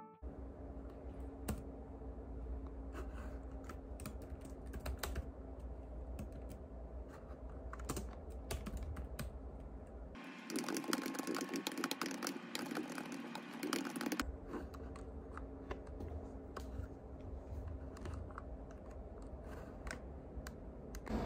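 Typing on a compact keyboard with round keycaps: a continuous run of light key clicks over a faint low hum, with a louder, closer stretch of clicks about ten seconds in.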